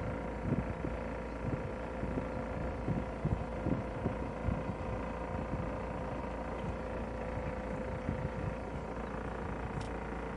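Wind buffeting the microphone in irregular low gusts, over a steady hum.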